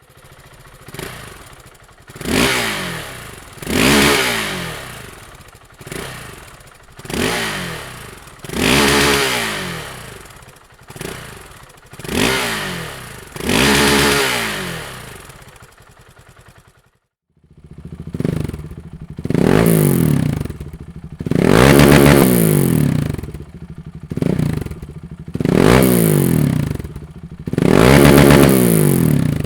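2009 KTM 690 Duke's single-cylinder engine, breathing through a Dominator aftermarket exhaust, being free-revved in repeated sharp throttle blips, each falling back toward idle. After a short break partway through, the blips come louder and longer.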